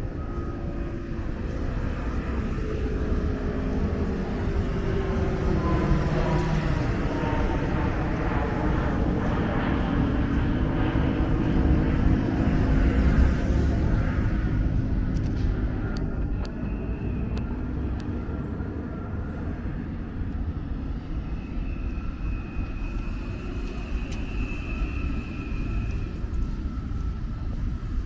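An airplane passing overhead: its sound swells over several seconds to a peak about halfway through, with a slowly falling pitch, then fades into the background.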